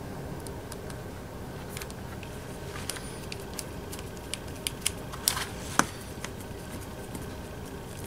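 Light scattered clicks and scrapes of a small screwdriver driving the cover screw into a metal XLR connector shell while the connector is handled, the sharpest click a little before six seconds in.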